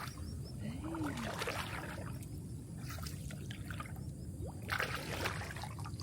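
Water trickling and splashing as a gill net is hauled up out of shallow water with fish caught in it, with a few louder splashes, the biggest about five seconds in.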